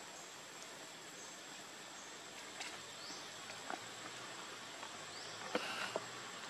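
Outdoor ambience with a steady high-pitched insect drone, broken by a few faint clicks, two short rising chirps, and a brief, slightly louder cluster of sounds about five and a half seconds in.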